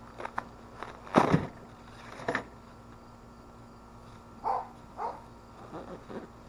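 Cardboard box flap being pulled and torn open, with a few light clicks and then a loud rip about a second in and a smaller one a second later. A dog barks twice about halfway through, followed by a few softer barks.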